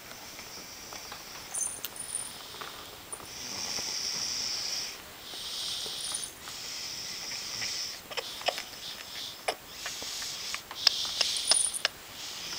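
Snoring: a run of hissy, wheezing breaths, each lasting about a second or more, with many sharp clicks in the second half.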